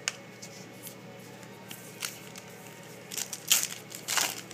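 A foil-wrapped Panini Titanium trading-card pack crinkling and tearing open in short crackly bursts in the last second and a half, after a couple of light clicks of cards handled on the desk.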